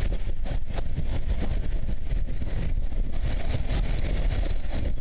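Wind buffeting the microphone with a heavy low rumble, over the sound of a steam train's carriages rolling away along the track.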